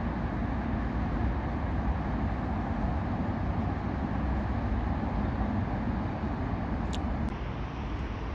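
Steady low rumble of city background noise, with two faint clicks about seven seconds in.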